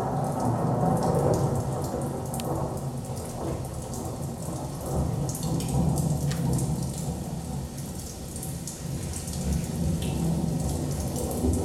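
Recorded rain-and-thunderstorm soundscape played over a theatre's speakers: a steady low rolling rumble under a crackling patter of rain.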